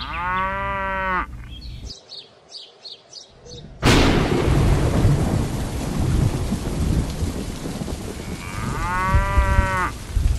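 A cow mooing, then a sudden crack of thunder about four seconds in that gives way to steady heavy rain, with a second moo over the rain near the end.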